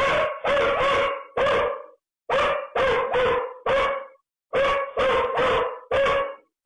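A dog barking loudly and repeatedly, in quick runs of about four barks separated by short pauses.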